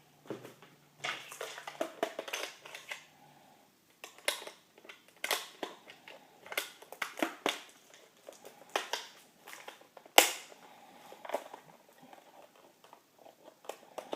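Hard plastic being handled and worked at: irregular clicks, knocks and crinkling, with one louder click about ten seconds in.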